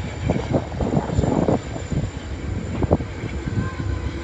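Wind buffeting the phone's microphone: an uneven, gusting low rumble that surges and eases.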